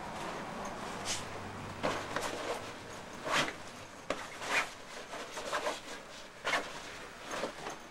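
Belongings being handled and packed by hand: a string of short knocks and rubs, roughly one a second, over a steady hiss.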